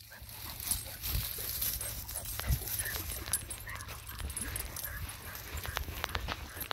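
Weimaraner puppies moving over sand and through dune grass: scuffing footsteps, rustling and small clicks, with a few short, faint puppy whimpers.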